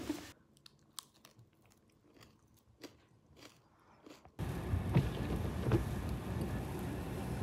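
Faint close-up chewing and crunching with scattered sharp clicks as a foil-wrapped chocolate is eaten. About four seconds in it cuts to the louder steady rumble of a car's interior on the move.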